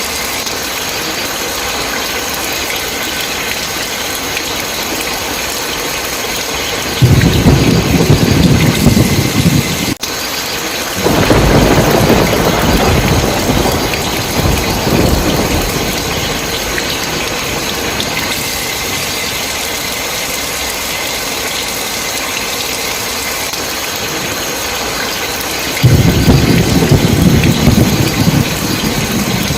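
Steady heavy rain with thunder rumbling three times. The first rumble breaks in suddenly about seven seconds in and lasts a few seconds, a longer one follows, and another starts near the end.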